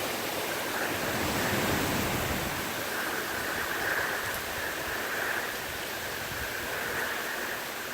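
Hurricane winds rushing steadily, with rain, with low rumbling gusts on the phone's microphone in the first few seconds.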